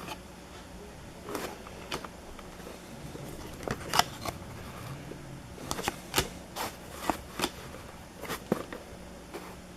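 Trading card packs and cards being handled: foil wrappers crinkling and tearing, and cards sliding and flicking against each other, in scattered short crackles that come thicker in the middle of the stretch.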